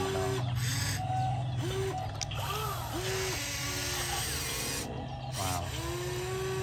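Toy RC excavator's small electric motors and gears whirring steadily as the arm swings and lifts a toy truck. Over it come several long held notes, one near the start and one near the end, each bending at its ends, with a few short sliding notes between them.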